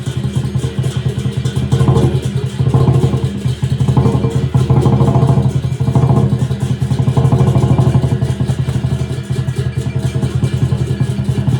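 Lion dance drum beaten in a fast, continuous roll, with cymbals swelling in and out about once a second.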